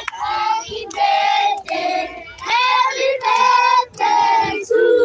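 A group of high-pitched voices singing loudly in short held phrases, each about half a second long, with brief breaks between them.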